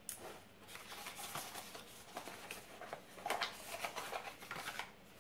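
Rustling and crinkling of packaging being handled, in irregular short rustles and clicks as items are moved around and taken out of a box.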